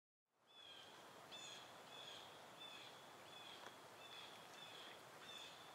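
Faint woodland ambience: a soft hiss with a short, high chirp repeating about every two-thirds of a second, starting about half a second in.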